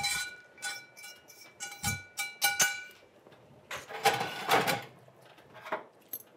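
A metal spoon clinking and knocking against a stainless-steel stockpot, about nine sharp strikes in the first three seconds, each leaving a ringing metallic tone. About four seconds in comes a brief scraping clatter of the pot and its lid.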